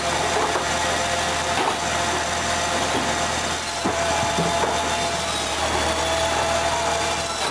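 Firewood processing machine's vertical band saw running steadily and cutting through a log, with the machine's steady motor hum underneath and a few light knocks of wood on the table.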